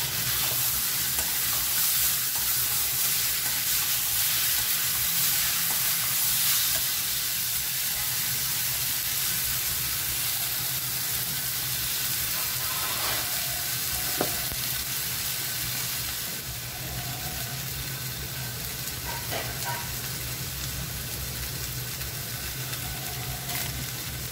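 Potatoes, peas and tomato paste sizzling in hot oil in a steel kadai, with a steady hiss and a metal slotted spatula stirring and scraping the pan now and then. The sizzle eases a little about two-thirds of the way in.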